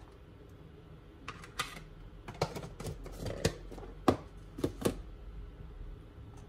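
Light clicks and taps of hands handling things on a kitchen counter around a salad bowl: a quick run of about a dozen sharp ticks from about a second in to about five seconds in, the loudest about four seconds in.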